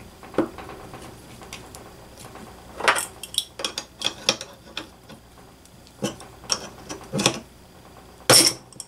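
Metal-on-metal clicks and clinks of an adjustable wrench and a small gear puller being fitted and turned on a model glow engine's front end. Irregular light clicks, with sharper clanks every second or so in the second half and the loudest near the end.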